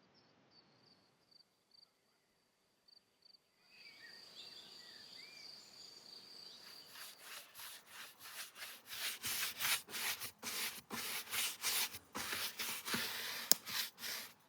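Repeated rubbing strokes on the wooden beehive, two or three a second, growing louder over the last half. Before them, a faint, rapidly repeating insect chirp.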